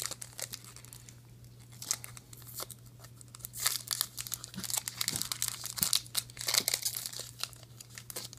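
Foil trading card pack wrapper crinkling and tearing as it is opened by hand, in irregular rustling bursts that grow busier from about halfway through.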